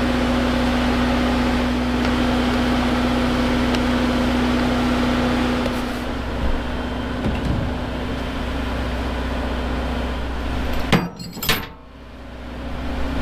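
An engine running steadily with a low hum. About eleven seconds in come a couple of sharp clicks and a brief drop in the hum before it builds again.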